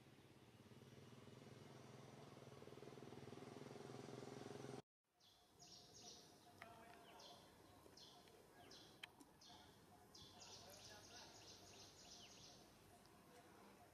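Faint outdoor ambience: a low steady hum that cuts out about five seconds in, then birds chirping in short high calls, with a quick run of them near the end.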